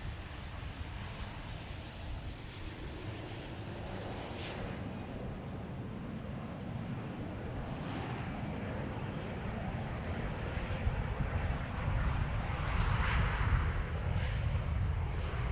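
Jet airliner engines, a steady rushing noise that grows louder as the aircraft approaches, with gusty wind buffeting the microphone.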